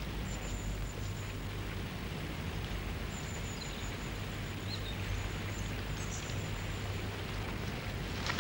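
A steady, even hiss, with a faint thin high whistle that comes and goes.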